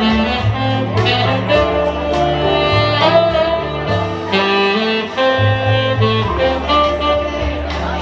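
Tenor saxophone playing a melody of held notes over a backing of bass and a steady drum beat.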